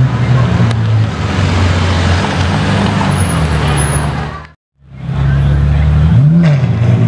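Straight-piped Ferrari 812 Superfast V12 running at low revs as it crawls past, a deep steady exhaust drone. The sound cuts out briefly about two-thirds through, then returns with a quick rev blip that rises and falls.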